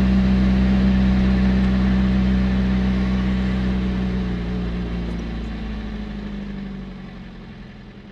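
Vehicle engine running steadily with road noise, heard from inside the cab. It fades out gradually over the last few seconds.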